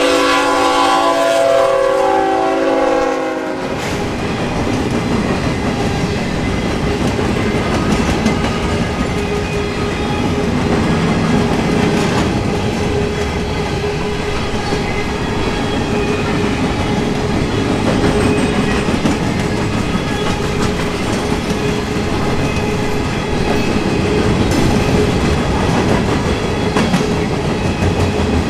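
Horn of a Norfolk Southern GE ET44AC freight locomotive sounding a several-note chord that cuts off about three and a half seconds in. Then comes the steady rumble and clatter of a long train of gondola cars rolling past, wheels clicking over the rail joints.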